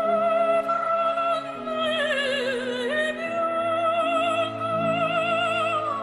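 Operatic singing: a high note held with wide vibrato over sustained accompaniment chords, the voice sliding lower for a moment about two seconds in before returning to the high note.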